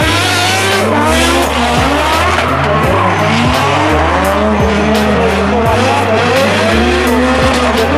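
Two drift cars sliding in tandem: high-revving engines rise and fall in pitch as the throttle is worked, with tyre squeal and hiss. Chill hop music with a steady beat and bass line plays underneath.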